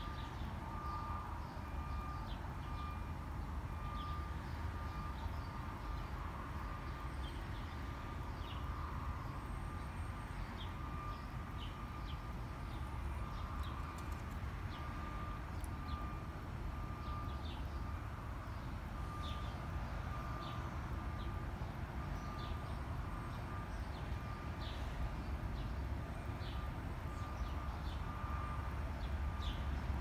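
Outdoor yard ambience: a steady low rumble with scattered short bird chirps and a faint high tone pulsing steadily.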